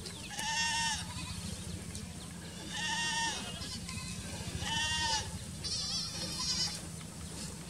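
Goats bleating: four high bleats about two seconds apart, the last one quavering.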